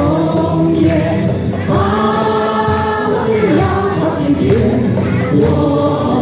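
Large amateur mixed choir of men and women singing a Mandarin folk song (minge) together, with one long held note about two seconds in.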